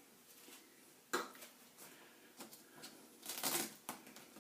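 Handling noises from the inside of an opened-up flat-screen TV: a sharp click about a second in, then a short crinkling rustle of tape and wiring near the end.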